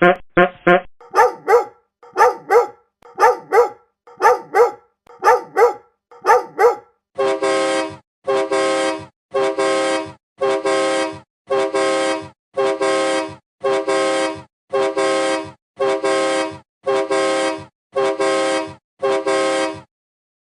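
A string of sound effects: a few quick blips, then six evenly spaced double barks like a dog, then about thirteen half-second horn honks roughly one a second.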